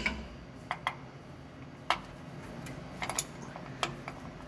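A few sharp, irregular metallic clicks and clinks of a ratchet and socket working on the rear differential's filler plug as it is tightened back in.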